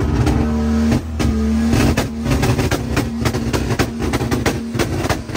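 Car engine running loud and revving, with a string of sharp cracks throughout.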